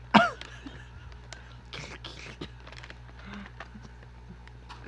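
A short, loud laugh with a falling pitch, followed by scattered soft clicks and crackles from a snack being handled and eaten close to the microphone.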